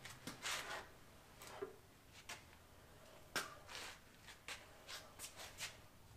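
Faint, scattered knocks and rattles from a metal bandsaw and its steel stand as it is tipped onto its wheels and rolled across a concrete floor.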